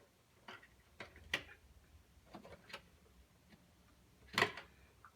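Plastic smoke detector head being twisted off its mounting base: irregular clicks and scrapes, the loudest near the end.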